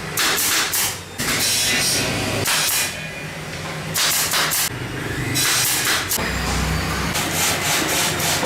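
Factory machinery noise, with repeated bursts of hissing and a low rumble underneath, changing abruptly every second or two.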